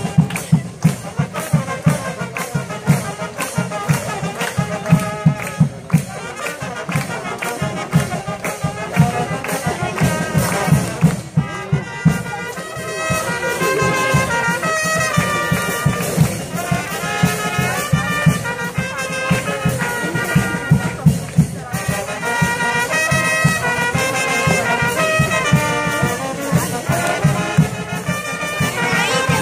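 Military brass band of trumpets, trombones and saxophone playing a tune over a steady percussion beat. The brass grows fuller and louder about twelve seconds in.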